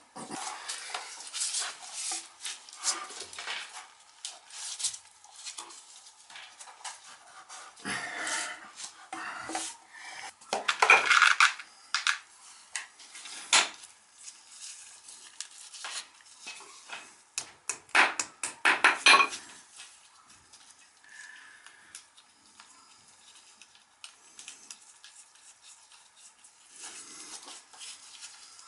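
Hammer taps and metallic clinks in scattered bursts, with a quick run of strikes a little past the middle, as clips are fastened over a plastic-coated copper oil line against concrete.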